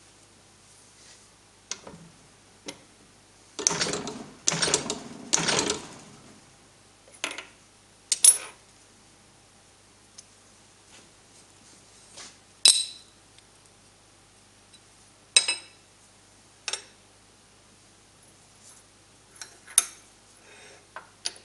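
Steel tooling pieces and a steel gate hinge clinking and knocking against each other and the cast-iron fly press bed as they are set up by hand. Three longer clatters come close together about four seconds in, then single sharp metal knocks every few seconds, some ringing briefly.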